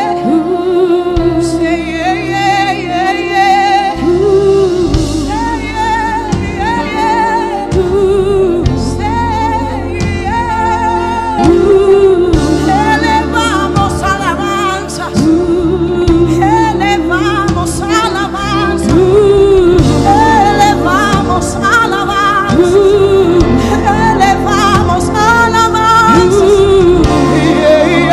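Live gospel worship music: a woman singing long, gliding notes into a microphone over a band's sustained keyboard and bass chords.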